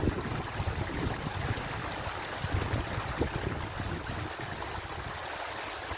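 Small stream running into little rock pools, a steady rush of water, with wind buffeting the microphone for the first four seconds or so.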